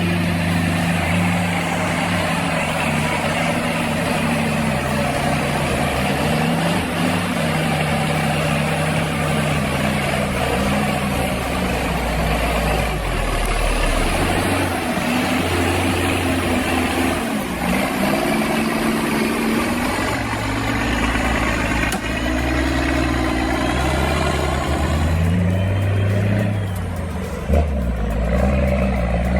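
Heavy vehicle's engine running under load, its pitch rising and falling as it revs and eases off, with a short bang near the end.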